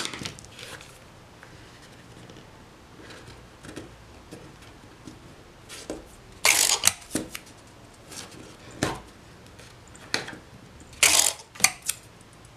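Hands working paper and cardboard while covering a small cardboard box: scattered light taps and rustles, with two louder rustling scrapes, about six and a half and eleven seconds in.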